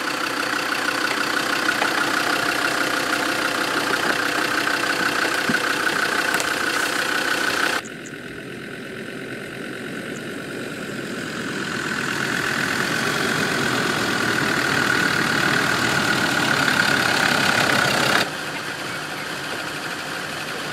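Land Rover Defender Td5's five-cylinder turbodiesel engine running at low revs with a steady whine as the vehicle crawls slowly over a rough off-road track. The sound drops suddenly about eight seconds in, builds back up gradually, and drops again near the end.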